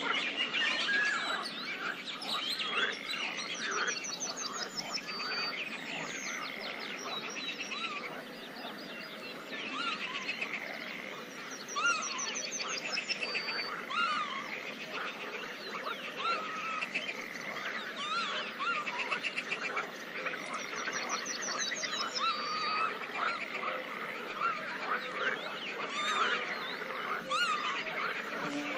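Pond ambience: a dense chorus of frogs calling, with birds singing short trills over it every several seconds.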